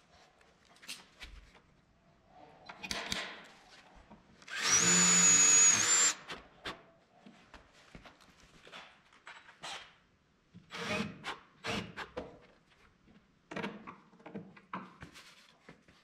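Cordless drill runs for about a second and a half, drilling a hole, with a steady high whine over the noise of the cut. Scattered knocks and clicks of tools and parts being handled come before and after it.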